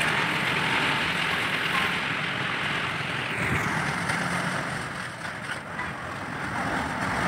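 A tanker truck's engine running steadily under a loud, even hiss of disinfectant spraying from its hose. The upper part of the hiss drops away about halfway through.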